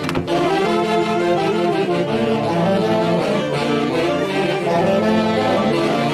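Band music led by saxophones and brass, several horns playing a melody together.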